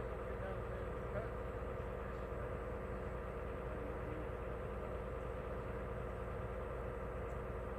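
Steady drone of a machine running at constant speed, an even hum with no knocks or changes.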